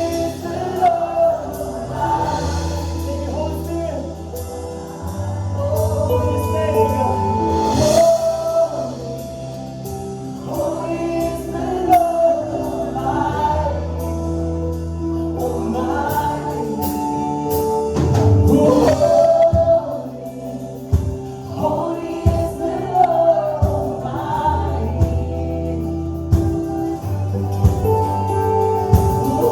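Live contemporary worship band with many voices singing together over sustained keyboard chords and bass. Drum hits come in more often through the second half.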